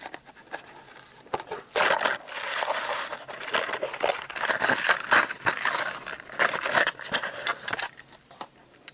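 Clear plastic blister packaging crinkling and crackling in the hands as it is pulled open to free a wooden toy engine, a dense run of crackles and clicks that eases off near the end.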